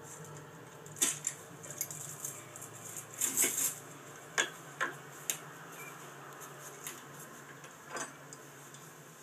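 Metal fencing tools and chain clinking and clanking as they are carried and set down, in a scatter of sharp clinks with a quick cluster about three seconds in, over a steady low hum.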